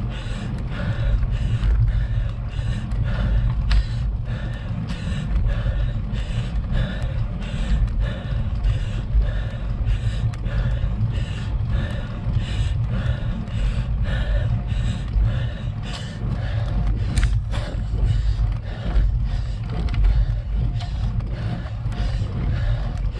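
Rider breathing hard in a quick, steady rhythm during a maximal effort up a steep climb, over a continuous low rumble of road vibration picked up by the bike-mounted camera on rough tarmac.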